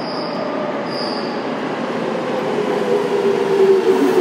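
Tokyo Metro Tozai Line train running into an underground station, its rumble growing louder as it comes in. About halfway through, a steady whine that drops a little in pitch sets in as the train slows. Two short high beeps sound near the start.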